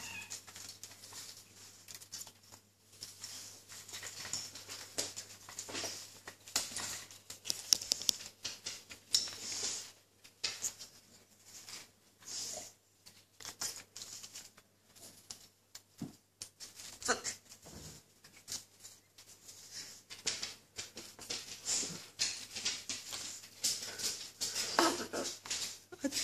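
A pet parrot rolling and scuffling on its back in loose litter on a cage top, grabbing at hanging toys: irregular rustling, scratching and clicking.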